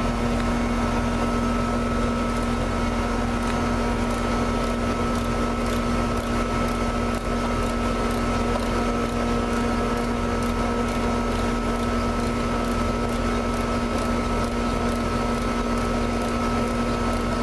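Air-conditioning condensing unit running: a steady hum with a fainter higher whine above it. The compressor is pumping the refrigerant charge down into the condenser with the liquid-line service valve shut.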